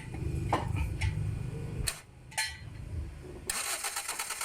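A 2010 Toyota Vios engine being cranked by its starter motor without catching, in two spells with a short break about two seconds in. It cranks but won't start. About three and a half seconds in, a fast, even clicking takes over.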